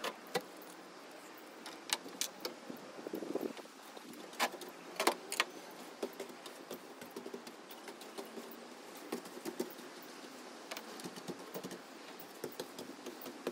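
Scattered light clicks and knocks, a few sharper ones among them, with some faint rustling: small parts and tools being handled during hand work.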